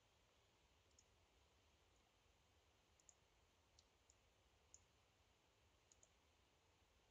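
Near silence broken by faint computer mouse clicks, about eight of them at irregular intervals, a few in quick pairs.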